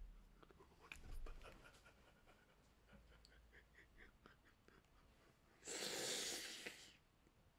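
A man's breath close to the microphone: mostly near silence with faint soft sounds, then one loud breathy exhale lasting about a second, near the end.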